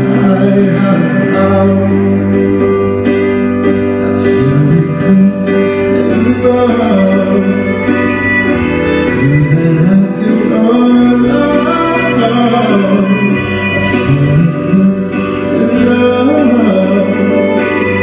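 Live band music: a male vocalist singing a slow, gliding melody over an amplified hollow-body electric guitar and a keyboard, with low sustained bass notes that change every few seconds.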